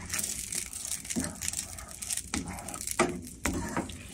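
Silicone spatula stirring cream and melted butter around a nonstick frying pan: soft wet scraping broken by irregular light knocks, the sharpest about three seconds in.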